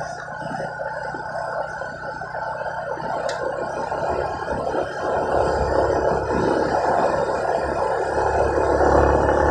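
Engine and road noise of a vehicle riding slowly along a paved road, steady at first and growing louder with a deeper rumble from about five seconds in.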